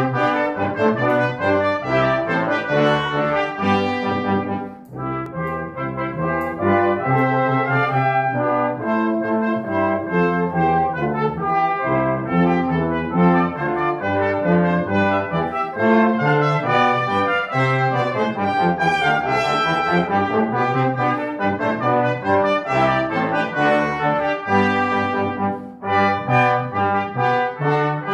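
Brass quintet of two trumpets, French horn, trombone and tuba playing together, with short breaks between phrases about five seconds in and again near the end.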